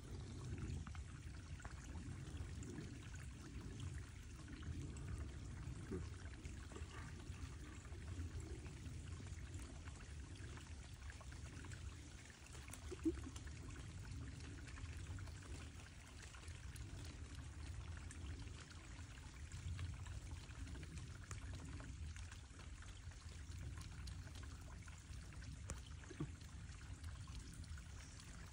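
Small woodland stream trickling steadily, with one sharp click about thirteen seconds in.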